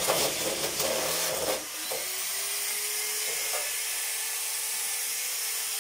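Handheld electric power tool cutting into material with a rough, loud sound for about a second and a half, then running freely with a steady whine for the rest of the time.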